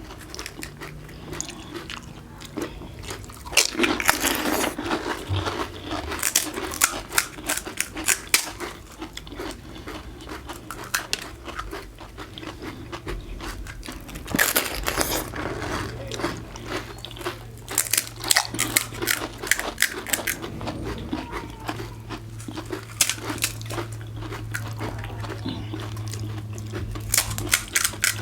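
Crisp hollow panipuri (golgappa) shells crunching and being chewed, in repeated bursts of crackling bites.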